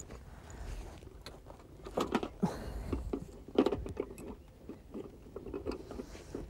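Crackly rustling and clicking of a nylon carp weigh sling being handled and lifted on its cords onto a dial scale, with a few louder crinkles and knocks about two to four seconds in.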